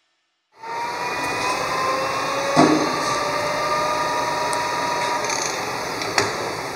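Metal lathe running in a machine shop: a steady motor whine under a broad machining hiss, starting about half a second in. A sharp metallic knock comes about two and a half seconds in, with a smaller one near the end.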